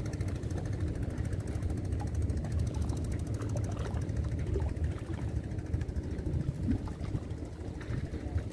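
Steady low outdoor rumble at the seawall, with a few faint light ticks over it.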